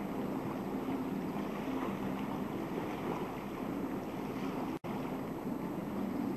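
Outdoor wind rushing over a camcorder microphone, with choppy lake water lapping and a faint low hum underneath. The sound cuts out for an instant about five seconds in.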